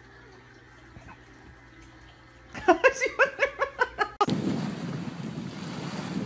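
A quick run of about eight short, high, rising squeals lasting about a second and a half, then an abrupt switch to wind buffeting the microphone over small waves lapping on a beach.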